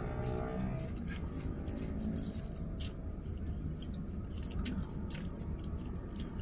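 Close-up eating sounds: chewing with irregular wet mouth clicks and smacks, over a steady low rumble inside the car cabin.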